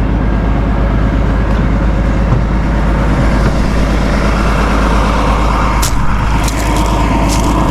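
Valmet 1280 tractor's six-cylinder MWM diesel engine running steadily, with a few sharp clicks in the second half.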